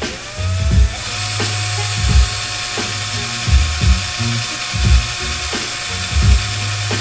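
Cordless drill motor spinning up with a rising whine, then running steadily as it spins a length of wire into a long coil.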